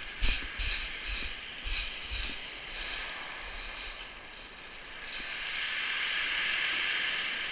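Footsteps crunching down steep beach shingle, several quick steps over the first few seconds. A wave then washes up the pebbles with a swelling hiss that fades near the end.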